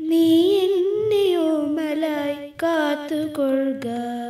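A girl's voice singing the last long-held notes of a slow prayer song, the pitch wavering and gliding.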